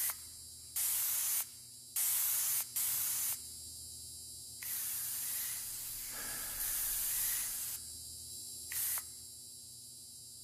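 Aerosol spray can of paint hissing in about six short bursts, some under a second and some over a second long, with short pauses between them.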